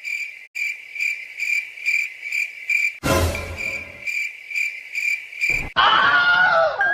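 Cricket chirping sound effect: a steady, even chirp repeating about two to three times a second. About three seconds in, a short noisy whoosh cuts across it. Near the end the chirping stops and a noisy sound with falling tones takes over.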